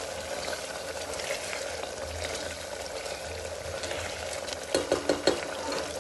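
Cooked mutton bubbling and sizzling in its juices in an open pressure cooker on a high gas flame, stirred with a wooden spatula while the liquid reduces. A quick run of four sharp knocks about five seconds in.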